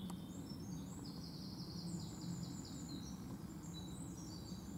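Small songbirds singing: a run of quick, high chirping notes, over a faint low background rumble.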